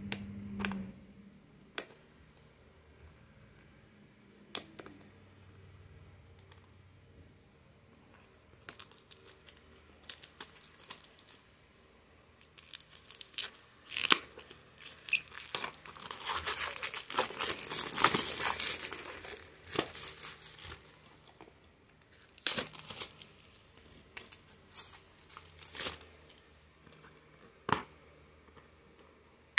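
Clear plastic shrink-wrap being slit, torn and peeled off a DVD case, crinkling in a long continuous run through the middle, with scattered sharp clicks and crackles before and after.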